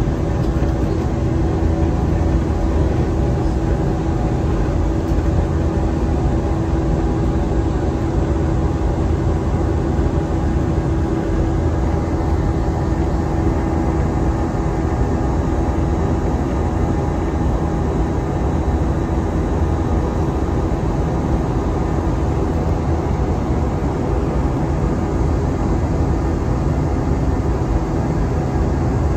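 Jet airliner cabin noise during the climb after takeoff: a steady engine drone and rushing air with a constant hum, heard from inside the cabin.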